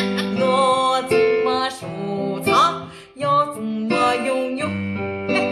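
Background music: a song with plucked and strummed guitar and a singing voice.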